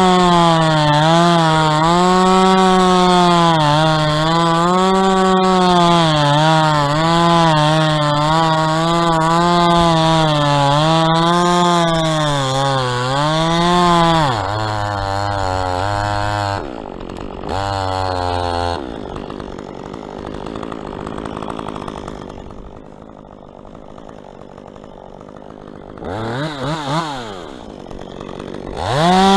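Chainsaw running at full throttle, its pitch wavering under load as it cuts into dead palm, for about fourteen seconds before dropping to idle. It then goes quieter, with two short revs near the end.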